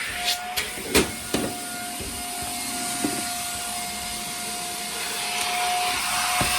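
Hoover Air Steerable upright vacuum running in tool mode, suction going through its hose, with a steady whine. A few sharp knocks in the first second and a half and another near the end.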